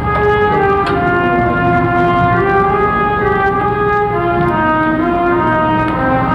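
Slow instrumental music of long held chords with a brassy tone, the notes changing in steps every second or so.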